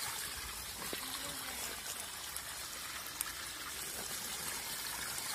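Shallow stream water trickling and running steadily.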